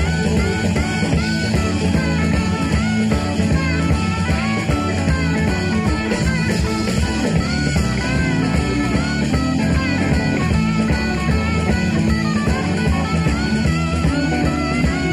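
Live southern rock band playing an instrumental passage, with an electric guitar lead playing bent notes over bass and drums.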